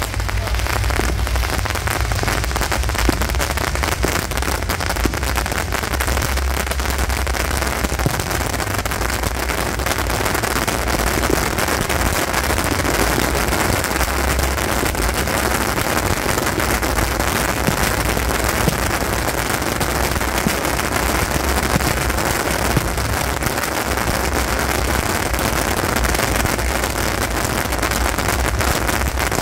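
Beehive rockets (Taiwanese fengpao) firing en masse: countless bottle rockets whizzing and popping in one dense, unbroken crackle, with a low rumble underneath.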